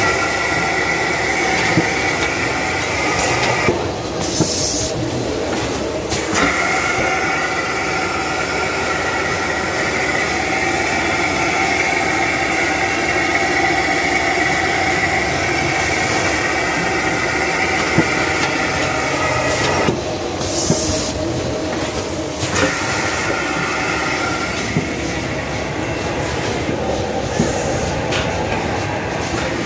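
Automatic toilet paper bundle packing machine running: a steady mechanical whir with several held tones. Three times the whir drops away for a second or two while a high, thin whistle-like tone sounds, and a few sharp clicks stand out.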